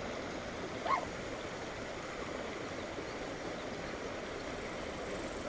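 Steady rush of water flowing over a low-water bridge, with one short high call about a second in.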